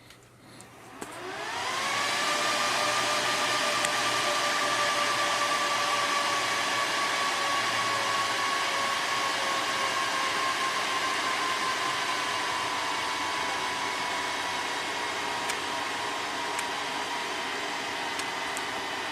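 Rack server / disk shelf cooling fans spinning up at power-on. A rising whine starts about a second in and climbs within a second to a loud steady rush of air with several whining tones, which then drop slightly in pitch as the fans settle.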